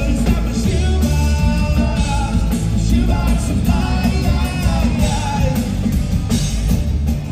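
Live rock band playing: a man singing lead over acoustic guitar, electric bass and drum kit, heard from the audience.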